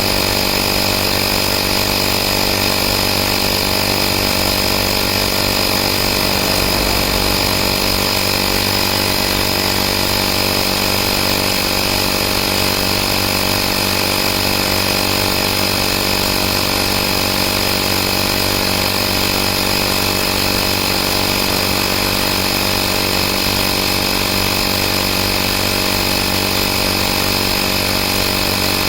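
AstroAI 12 V portable air compressor running steadily, its motor and piston giving an even, unchanging hum.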